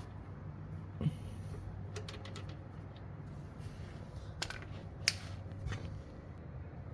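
Irregular metallic clicks and taps from a 13 mm socket wrench working the oil drain plug loose. The sharpest click comes about five seconds in, with a knock about a second in, over a steady low hum.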